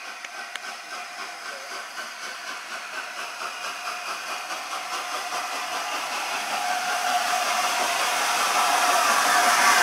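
Peppercorn A1 Pacific steam locomotive 60163 Tornado drifting slowly closer: a steady hiss of steam with a quick, even rhythm of beats, growing steadily louder as it nears.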